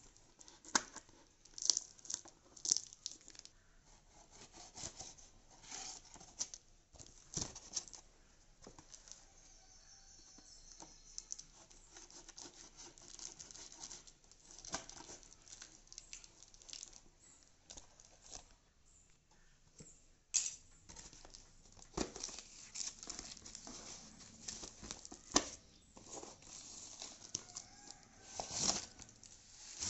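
Cardboard shipping box being opened by hand: packing tape slit with a knife blade and torn away, with cardboard and wrapping rustling, crinkling and scraping in irregular bursts.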